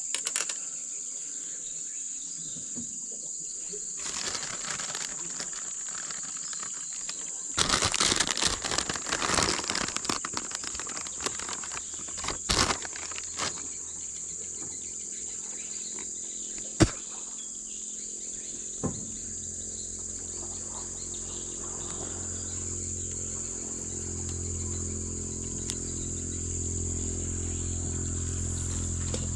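Steady high-pitched drone of insects in the background. About 4 seconds in, and again from about 7 to 13 seconds, there is close rustling and crinkling from handling. A single sharp click comes near 17 seconds, and from about 19 seconds a low steady hum of several tones slowly grows louder.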